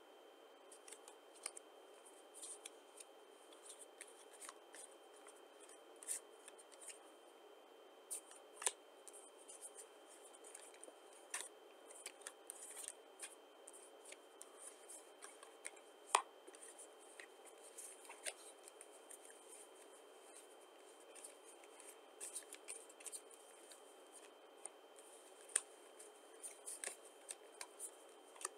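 Playing cards being handled: scattered soft clicks, snaps and rustles as UNO cards are sorted in the hand and laid down on the piles, with one sharper click about sixteen seconds in.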